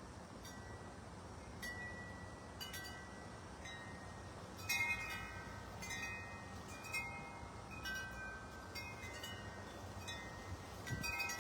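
Wind chimes ringing: irregular struck notes that ring on, growing busier about halfway in.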